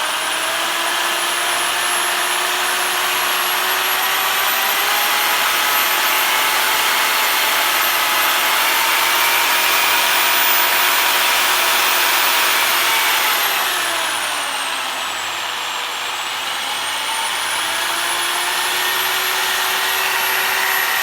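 Crown 800-watt jigsaw's electric motor running with a steady whine. The pitch climbs slowly as the speed is raised, falls away for a couple of seconds about two-thirds of the way through, then climbs again.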